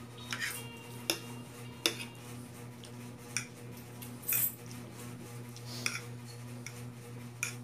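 Metal fork clinking and scraping against a plate as spaghetti is twirled onto it: a series of separate sharp clicks, with one longer scrape a little past the middle.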